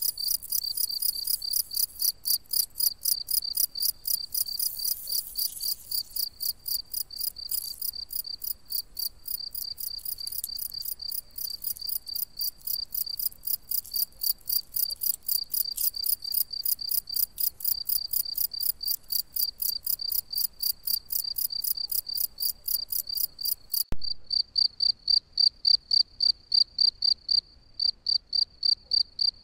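A cricket chirping steadily, about three high-pitched chirps a second. The sound changes abruptly about 24 seconds in, and the chirping carries on after it.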